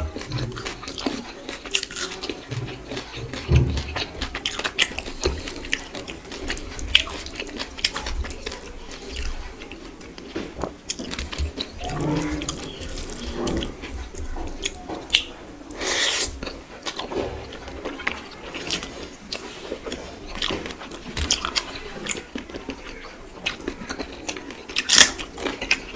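Close-miked eating sounds: chewing, with frequent sharp wet mouth clicks and smacks.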